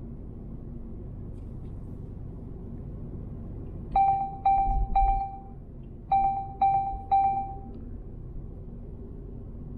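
Steady road rumble from a car at motorway speed, broken by two sets of three short electronic beeps on one pitch, each fading away, about half a second apart; the first set comes about four seconds in, the second about two seconds later.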